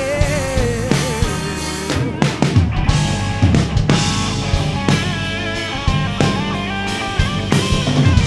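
A band plays an instrumental passage of a pop-rock worship song, with drum kit and guitar. A singer's last held, wavering note of the chorus fades out about a second in.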